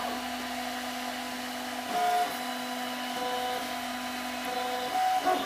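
Turnigy Fabrikator 3D printer printing, its stepper motors whining in steady tones that jump to a new pitch every second or so as the print head changes direction and speed.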